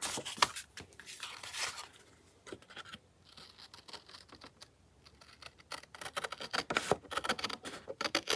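Paper and card being handled on a work table: irregular rustling, scratching and small taps, sparse through the middle and busier near the end.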